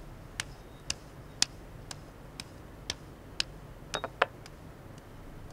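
Footsteps clicking on a hard floor, about two steps a second, with a quick group of clicks near the end.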